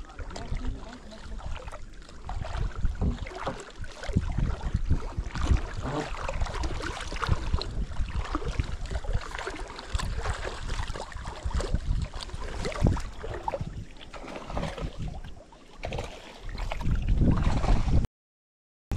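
Wind buffeting the microphone in uneven gusts, with water splashing in the shallows. The sound cuts out to dead silence for about a second near the end.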